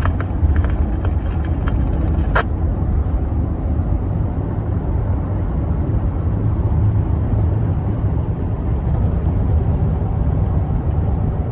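Steady low rumble of road and engine noise inside a moving vehicle, with a single short click about two seconds in.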